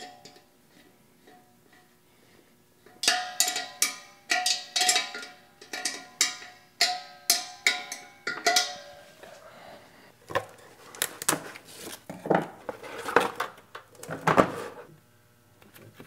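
Metal wrench clinking on the bolts of an air compressor's steel air tank as the handle bracket is tightened. The clinks start about three seconds in, two or three sharp strikes a second, and the tank rings after each. Near the end come a few duller knocks.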